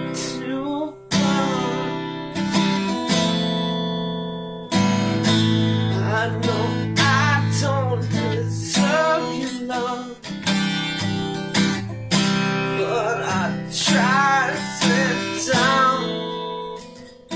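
Song with a strummed acoustic guitar and a melody line over it that bends and wavers in pitch.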